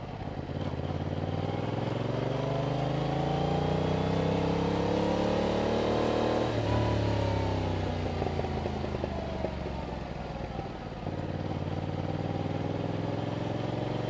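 Yamaha MT-07's 689 cc parallel-twin engine running through its stock exhaust. It pulls up through the revs for about six seconds, then the throttle is shut suddenly and the revs wind down as the bike slows. Near the end the throttle opens again and the engine holds a steady note.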